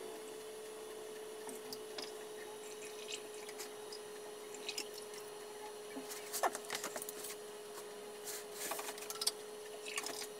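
Engine flush being poured from a bottle into an engine's cylinders: faint trickling and dripping, with small handling clicks that bunch up about six seconds in and again near the end. A steady faint hum runs underneath.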